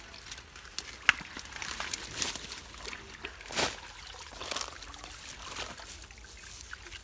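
Shallow muddy water trickling, sloshing and splashing as a cast net and clumps of water hyacinth are handled and hauled through it. Short sharp splashes come now and then, the loudest about a second in and a little past the middle.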